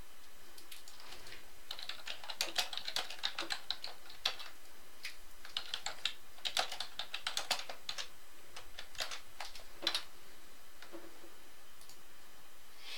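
Typing on a computer keyboard: three bursts of quick key clicks with short pauses between them.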